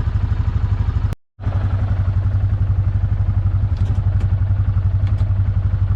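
Hisun Axis 500 UTV's single-cylinder engine idling with an even, rapid pulse. The sound cuts out briefly about a second in, then the idle carries on.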